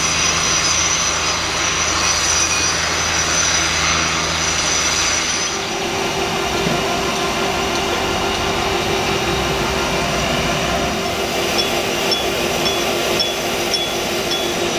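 Steady mechanical drone of construction-site machinery. About five and a half seconds in it changes to a steady, slightly pulsing hum, with faint regular ticks about twice a second near the end.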